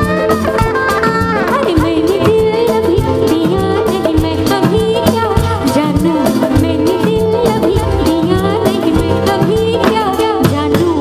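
A woman singing a Hindi film song live into a microphone, backed by a full band with a steady drum beat and percussion.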